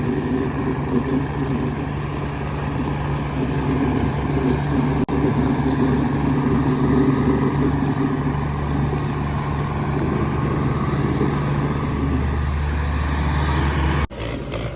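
Tractor diesel engine running hard and steadily with a low, even beat, heavier from about eight seconds in. Near the end it breaks off abruptly, giving way to a more sharply pulsing engine sound.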